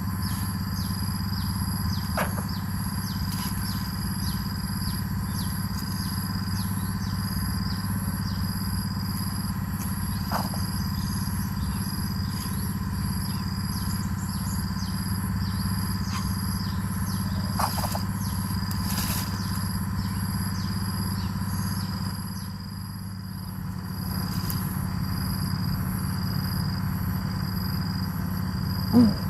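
Steady outdoor insect droning over a low hum, with scattered short chirps and one louder, short call near the end.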